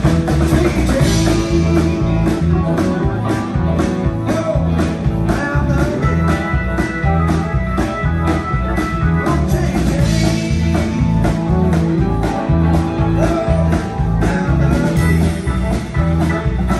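Live rock band playing an up-tempo number: a drum kit keeping a steady beat under electric bass, electric guitars and keyboards.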